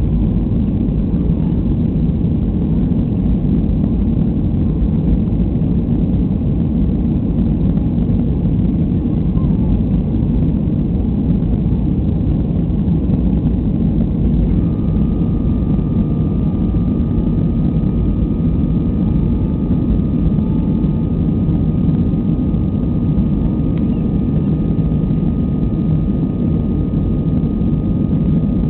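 Cabin noise of a Boeing 737-300 climbing after takeoff, heard from a seat over the wing: the steady deep rush of its CFM56 turbofans and the airflow. A thin steady whine joins about halfway through.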